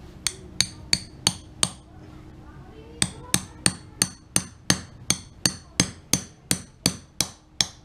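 Hammer blows ringing on a steel suspension shaft, driving it into greased needle bearings past new oil seals: five quick strikes, a pause of about a second, then a steady run of about fifteen more at roughly three a second.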